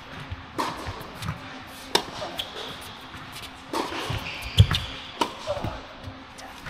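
Tennis rally on an indoor hard court: sharp racket strikes and ball bounces about a second apart, the loudest about four and a half seconds in, in a large echoing tennis hall.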